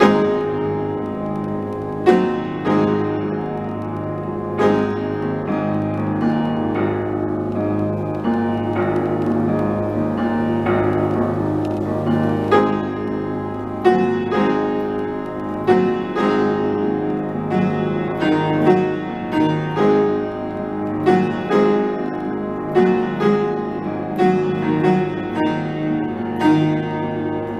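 Piano playing, with sharp struck accents every second or two that come more often in the second half.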